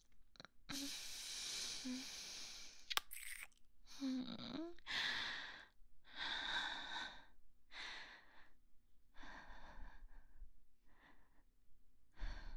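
Close-microphone ASMR kissing: a series of breathy kisses with lip smacks and exhales, about eight in a row, with a sharp lip click about three seconds in.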